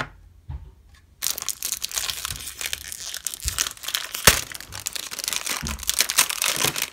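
Thin plastic wrapping crinkling and tearing as it is peeled off a new speedcube, starting about a second in after a few soft knocks of handling the plastic case, with one sharp click partway through.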